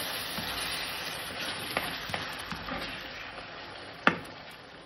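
Tomato sauce and chopped onion, pepper and garlic sizzling in a nonstick frying pan as it heats toward a boil, stirred with a silicone spatula that gives small scrapes and clicks. The sizzle slowly fades, and there is one sharper knock of the spatula on the pan about four seconds in.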